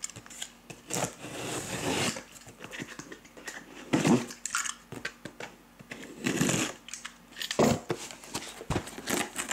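Cardboard shipping case being handled and opened: irregular scraping, rustling and knocks of cardboard, with several louder scrapes spread through.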